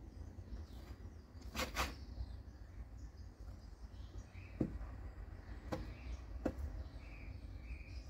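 Quiet background rumble with a few soft short clicks, a double click about a second and a half in and then three single ones later, plus faint high chirps; the rooster does not crow.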